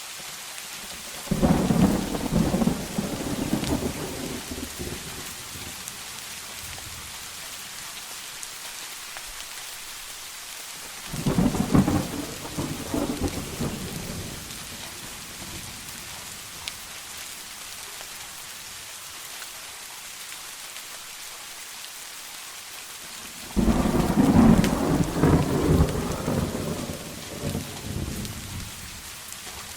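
Steady heavy rain with three claps of thunder: each starts suddenly, crackles, then rumbles away over a few seconds, about a second in, about eleven seconds in, and near the end, the last one the longest.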